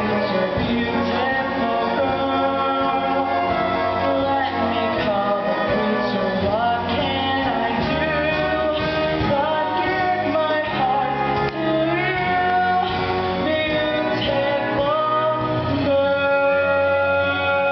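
A stage-musical song: female and male voices singing with instrumental accompaniment in a large hall. About sixteen seconds in the singing gives way to a long held chord.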